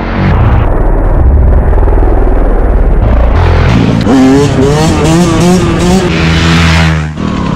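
Yamaha YZ125 single-cylinder two-stroke dirt bike engine heard on board, running at low revs at first, then revving up through the gears from about four seconds in, its pitch climbing in repeated steps.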